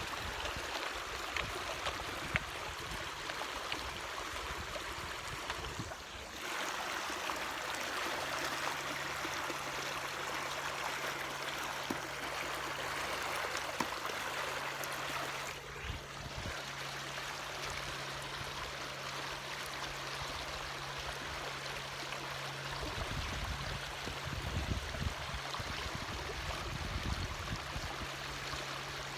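Water rushing along the hull of an inflatable kayak under way, with a steady low hum, plausibly its Torqeedo Ultralight electric outboard, joining about eight seconds in. Low rumbling bursts come near the end.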